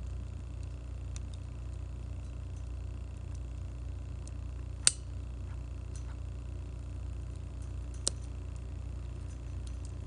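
Wood campfire crackling: scattered small ticks and two sharp pops, a loud one about five seconds in and a smaller one about eight seconds in, over a steady low rumble.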